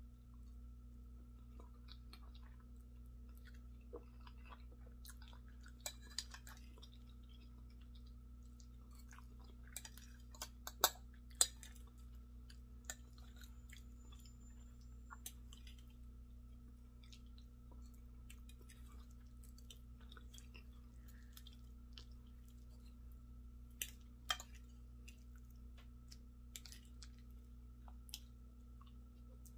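Quiet mouth and chewing sounds of someone eating soft grits and scrambled eggs, with scattered sharp clicks of a metal fork against a glass bowl, the loudest two close together about eleven seconds in and another about twenty-four seconds in. A steady low hum runs underneath.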